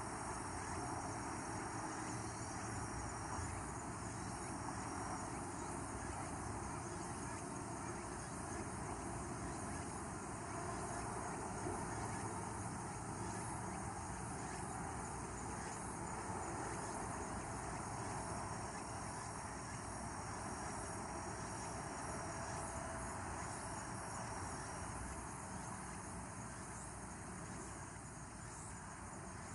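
Evening outdoor ambience: insects trilling in stretches of a few seconds over a steady low hiss, the whole growing slightly quieter near the end.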